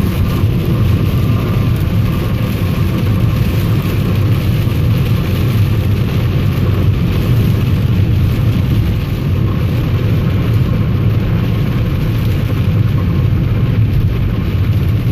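Steady noise inside a car in a heavy thunderstorm: rain on the roof and windshield mixed with the low rumble of the car's engine and road noise.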